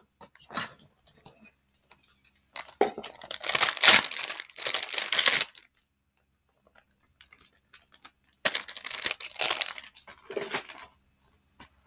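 Thin plastic wrapper being torn open and crinkled by hand, in two long bursts of rustling, the first about three seconds in and the second around eight and a half seconds in.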